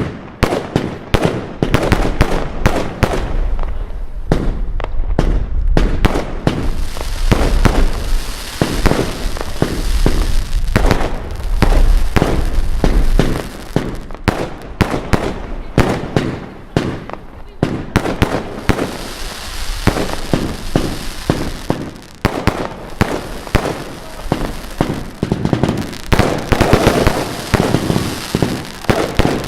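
Fireworks going off in quick succession: a near-continuous string of bangs, with stretches of dense crackling.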